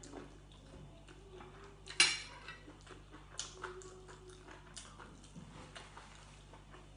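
A metal spoon clinks sharply against dishware once, about two seconds in, with a brief ring, followed by several lighter clicks of cutlery and dishes.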